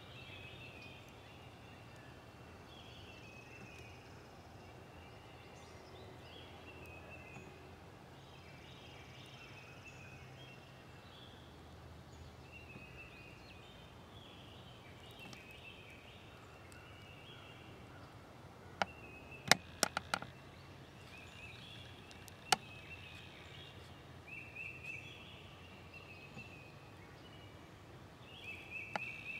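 Woodland songbirds calling faintly, in short repeated chirping phrases, over the quiet hush of the woods. About two-thirds of the way through come a handful of sharp clicks, a cluster of four and then one more a couple of seconds later.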